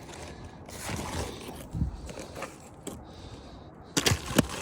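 Asphalt shingles being handled: irregular scraping and rustling, with two sharp knocks about four seconds in.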